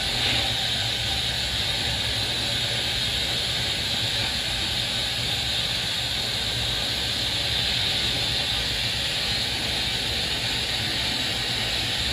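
Vapor blasting cabinet's blast gun spraying a steady hiss of compressed air and water-abrasive slurry onto a two-stroke cylinder head, with a low hum underneath. This is the first, stripping stage, set to strip paint and oxidation quickly.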